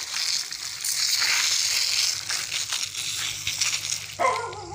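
Dry fallen leaves and twigs crunching and rustling underfoot, a rough crackle with uneven steps.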